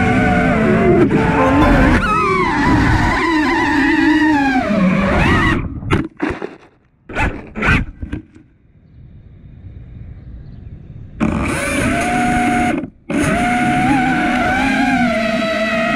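FPV quadcopter's brushless motors and propellers whining, the pitch rising and falling with the throttle. About six seconds in the throttle is cut to a few short blips, and the sound stays low for a few seconds. The motors spin up again about eleven seconds in, cut out once briefly just before thirteen seconds, then run steadily.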